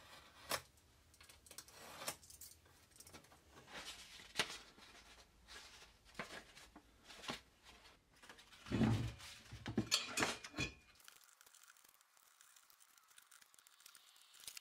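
Paper template being cut with a knife along a steel ruler in short sharp strokes, then paper rustling and handling noise as the template is wrapped around a steel tube, loudest about nine to ten seconds in.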